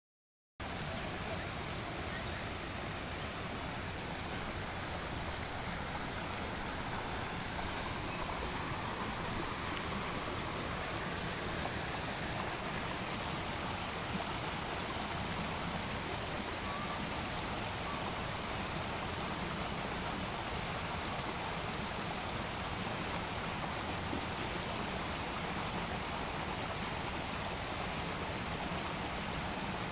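A steady rushing noise that holds even throughout, with no distinct sounds standing out from it.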